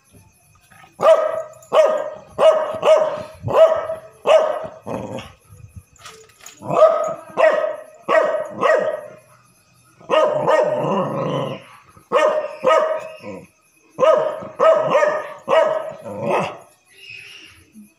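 A dog barking in quick repeated bouts at a grasshopper on the ground, with a longer drawn-out bark about ten seconds in.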